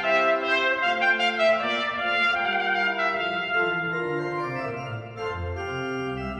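Trumpet and pipe organ playing a Baroque sonata together: the trumpet plays a melodic line of quick notes that give way to longer held ones, over sustained organ chords. Deep organ bass notes come in near the end.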